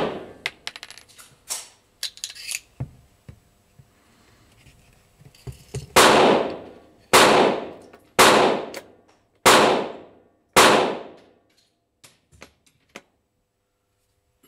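Pistol shots: a series of five sharp shots about a second apart, each trailing off with an echo, plus the fading tail of one shot at the start. Small clicks and knocks in the first few seconds and again after the string.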